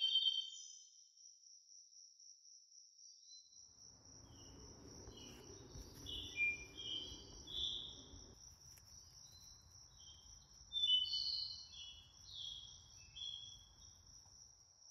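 Small birds singing outdoors: short, varied chirps and warbles scattered through, over a steady high insect-like trill. A faint outdoor rumble comes in about four seconds in.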